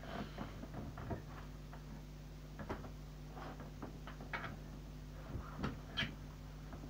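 Irregular soft clicks and rustles of cloth moving close to the microphone, over a steady low electrical hum.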